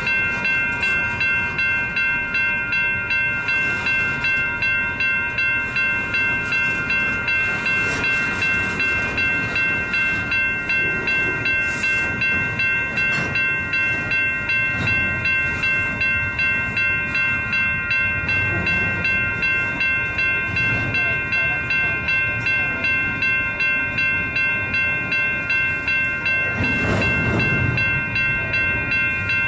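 Double-stack intermodal train's well cars rolling slowly past, with a grade-crossing warning bell dinging steadily over it at about two strikes a second. A louder low rumble swells near the end as more cars pass.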